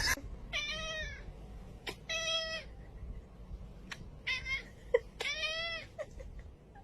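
A domestic cat meowing four times, each meow about half a second long and falling in pitch at its end, with a few faint clicks between them.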